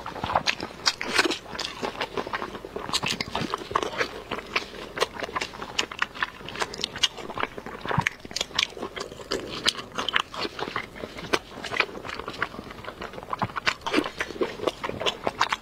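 A person biting and chewing braised pork belly up close, with many short sharp mouth clicks, several a second.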